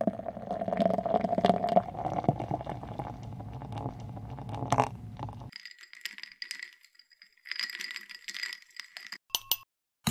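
A creamy banana-milk mixture pours steadily into a glass of iced coffee over ice for about five seconds. It stops, and a metal spoon stirs the drink, clinking against the glass and ice so that the glass rings.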